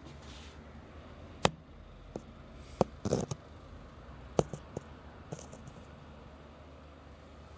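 A scattered run of light clicks and taps, the sharpest about a second and a half in, with a short rattling cluster near the middle, over a faint low hum.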